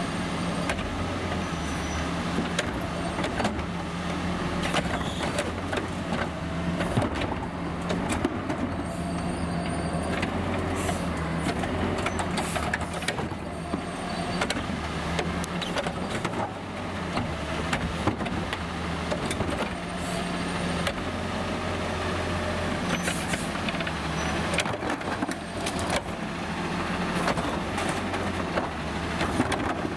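Garbage truck with a Heil front loader and Curotto Can cart grabber: its engine runs steadily, the note swelling and easing several times, with frequent clanks and knocks from the cart-handling gear.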